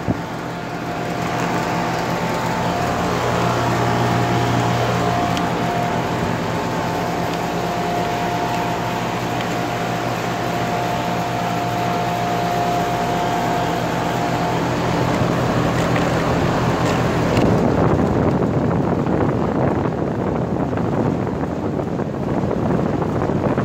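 2014 Goodman 5-ton heat pump outdoor unit running in cooling mode, with a steady machine hum. About seventeen seconds in the hum's tones stop and a steady rushing noise takes over.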